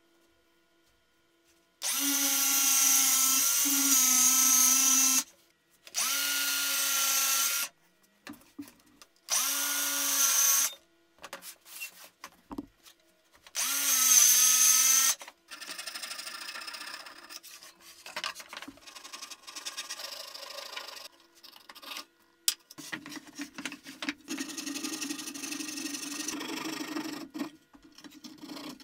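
A DeWalt cordless circular saw run in four short bursts of one to three seconds, each starting abruptly, the motor's pitch sagging and recovering as the blade cuts through plywood. After that come quieter scraping, rubbing and light knocks of wood being handled.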